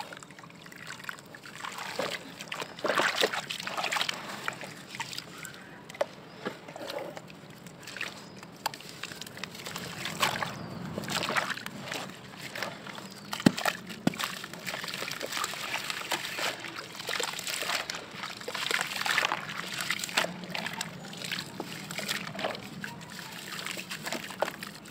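Hands sloshing and splashing muddy water in a plastic bucket while squeezing and crumbling soaked, gritty sand blocks into slurry, in irregular wet swishes. A single sharp knock about halfway through.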